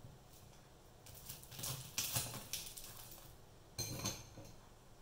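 A crisp-fried chicken nugget being cut and pulled apart with tongs: faint crunching and scraping, with a light clink near the end.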